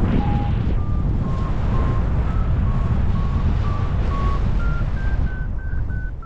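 Paragliding variometer beeping about twice a second, the short beeps rising in pitch as the climb strengthens, signalling the glider is in rising air. Loud wind rush on the microphone runs underneath.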